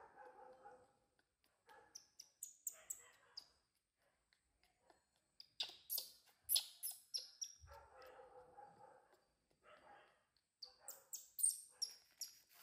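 Newborn baby monkey squealing in short, very high-pitched cries that fall in pitch, in three bouts: about two seconds in, about six seconds in, and near the end.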